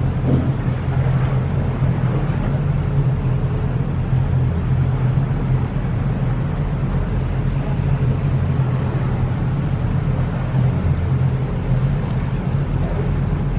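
Whale-watching boat's engine running with a steady low hum.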